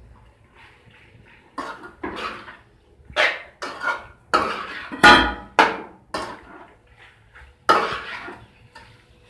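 Metal spoon stirring macaroni in a metal kadai, mixing the masala through it: a run of short scrapes and clanks against the pan, the loudest about halfway through.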